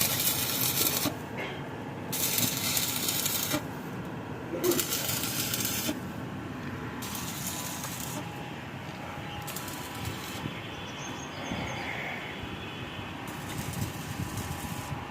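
Electric arc welding crackling and hissing in short runs of about a second or so each, several times with pauses between, as a steel pipe frame is tack-welded onto a car.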